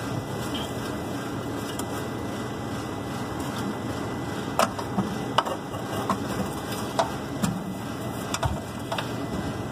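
A series of sharp metal clanks and knocks as the gas burner assembly of a Bryant rooftop unit's furnace section is handled and slid into place, over a steady background noise.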